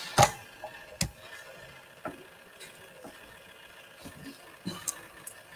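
A handful of sharp, irregularly spaced clicks and knocks, the loudest about a quarter second in, with smaller ones about one, two and five seconds in, over faint steady room noise.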